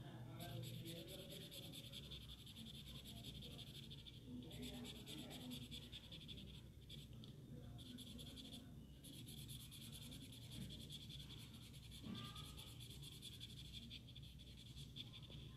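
Faint scratching of a coloured pencil shading on drawing paper in quick back-and-forth strokes, with a few short pauses.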